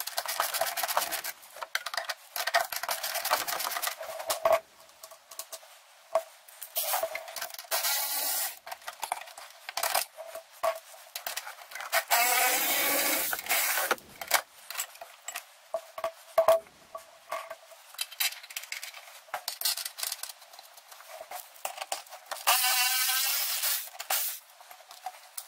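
Cordless electric ratchet spinning suspension bolts in and out in several short bursts of motor whir, between stretches of rapid ratcheting clicks and metal tool clinks.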